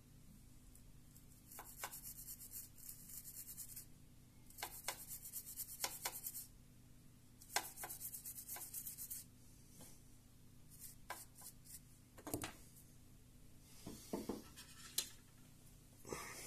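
A thin pointed stick scraping and rubbing over the small plastic microphone section of a Bluetooth headset, in three scratchy stretches of a couple of seconds each, followed by a few sharp clicks and short scrapes.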